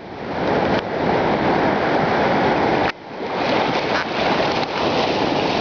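Ocean surf washing and foaming in the shallows, a loud steady rush with wind buffeting the microphone. The noise drops off sharply about three seconds in and swells back up as the next wash comes through.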